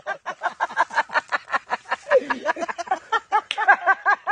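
A voice repeating a short syllable very rapidly, about eight times a second, each one rising and falling in pitch like a cackle. A brief sharp click comes about three and a half seconds in.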